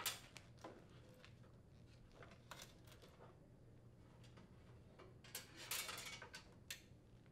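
Faint handling noise: a few light clicks and rustles, with a longer rustle about five to six seconds in, as a thin sensor wire is pulled out through holes in the unit's control box and air housing by gloved hands.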